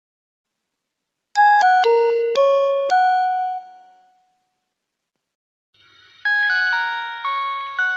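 Nokia mobile phone tones: a short chiming melody of about five notes, then silence, then a second short chiming melody of about five notes starting near the end.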